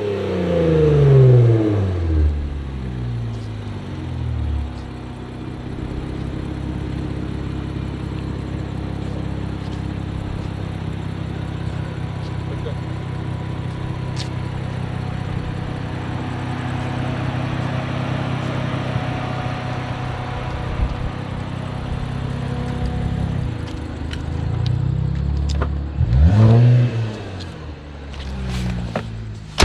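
2018 Infiniti Q60's twin-turbo VR30DDTT V6 through HKS resonated lower downpipes, a custom 3-inch double X-pipe exhaust and Flowmaster FlowFX mufflers: revs falling back to a steady idle, then a rev blip about 26 seconds in and a smaller one near the end.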